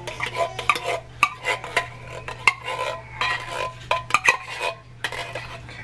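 Irregular metallic knocks and clinks from a tin can of condensed cream of celery soup being handled upside down as the thick soup slides out into a plastic mixing bowl. A steady low hum sits underneath.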